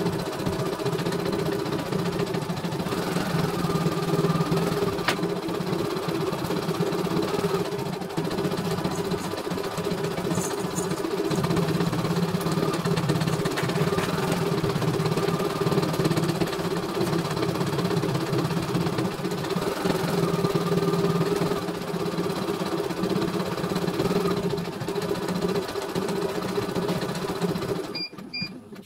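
CNY E900 computerised embroidery machine stitching a design, its needle and motor running steadily. The sound stops suddenly near the end, followed by two short beeps.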